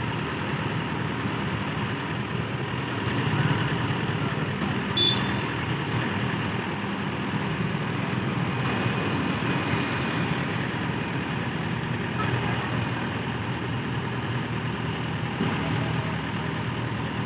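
Diesel engine of the farm machinery idling steadily, with an unchanging low hum.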